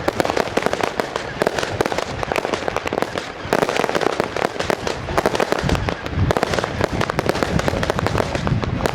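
Fireworks display going off in a dense, unbroken stream of bangs and crackling, with deeper booms in the second half.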